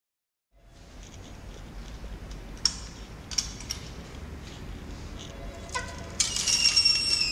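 The folding metal lattice gate of an old cage elevator being handled: a few sharp metallic clicks and clinks, then a high metallic squeal near the end as the gate slides along its track. A low steady hum runs underneath.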